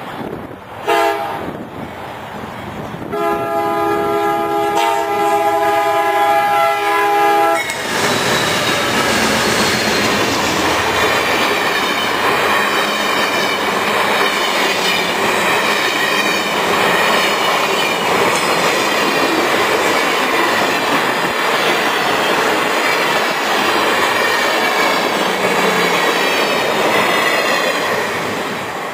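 Amtrak passenger train's locomotive horn: a short toot about a second in, then a long blast of several notes held for about four seconds. The train's stainless-steel passenger cars then pass close by with a steady rumble and wheel clatter, easing off near the end.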